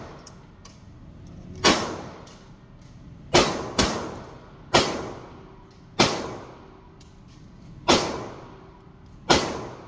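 AR-15 rifle fired seven times in semi-automatic single shots at an uneven pace, two of them in quick succession. Each shot is a sharp crack followed by a short echoing tail.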